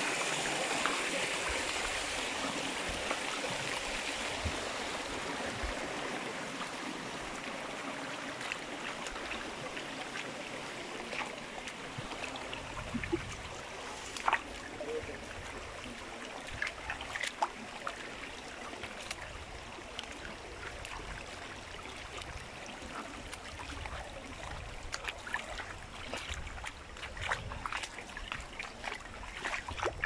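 Shallow rocky stream babbling and trickling over stones, slowly growing quieter. Scattered small splashes and knocks of feet wading through the water and over the stones, more of them near the end.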